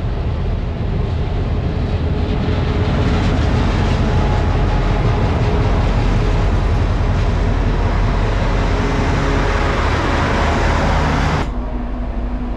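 A TCDD DE 22000-class diesel-electric locomotive runs past at close range with its engine running steadily, and its passenger coaches roll by behind it. The sound grows fuller as the coaches pass, then drops off suddenly near the end.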